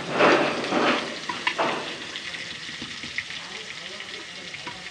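Crushed garlic dropped into hot oil with nigella and cumin seeds in a kadhai: a loud burst of sizzling that drops after about a second and a half to a quieter sizzle with scattered pops.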